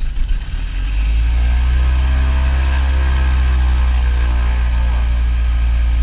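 Piper PA-44 Seminole's four-cylinder Lycoming engine starting: uneven firing for about a second as it catches, then settling into a steady idle, heard from inside the cockpit.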